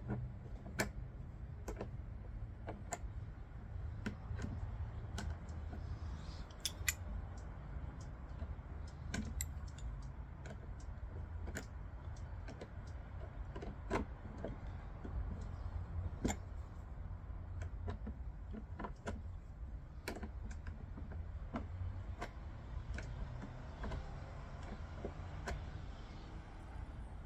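Open-ended wrench clicking against the petcock as it is screwed into a KTM 450 EXC's plastic fuel tank a half turn at a time: irregular light metallic clicks over a low steady hum.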